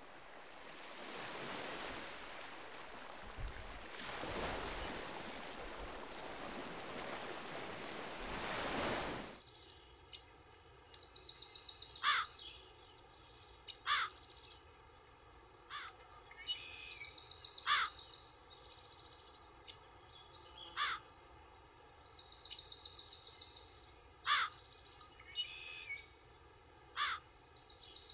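Sea surf washing on a beach, swelling twice, cuts off suddenly about nine seconds in. It gives way to a bird ambience: short, loud calls every two to three seconds with higher chirping between them.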